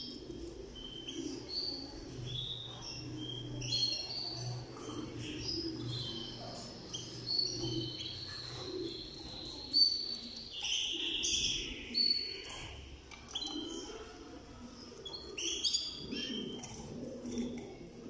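Canaries chirping in a cage: many short high chirps and calls, with a longer run of notes in the middle and a louder burst a little after halfway.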